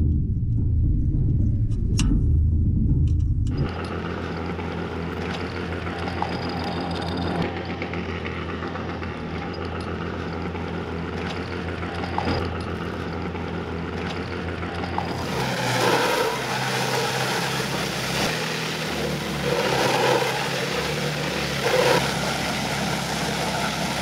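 Fire truck engine running steadily. About fifteen seconds in, a louder hiss of spraying water joins it.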